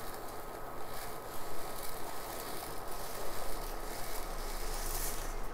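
Popped jowar (sorghum) puffs pouring off a steel plate into a pan of bubbling jaggery syrup, rustling and pattering as a spoon pushes them off, over the hiss of the syrup. A faint steady high tone sits underneath.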